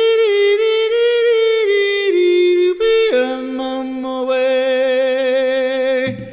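Background music added in editing: a melody of long held notes that step from pitch to pitch, changing about halfway through and breaking off briefly near the end.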